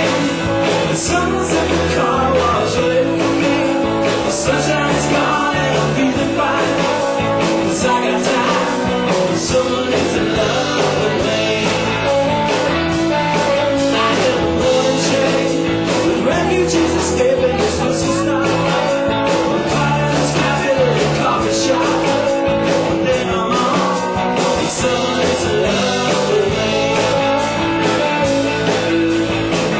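A live rock band playing a song: guitars over changing bass notes, with drums keeping a steady beat of cymbal hits.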